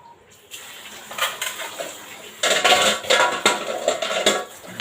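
Kitchenware clattering: dishes, a glass and a spoon knocking together, getting louder and busier about halfway through.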